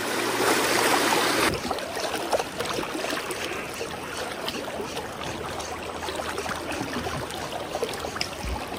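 Shallow creek rushing over a stony bed, a steady rush of water. It is louder for about the first second and a half, then drops suddenly to a lower, steady flow.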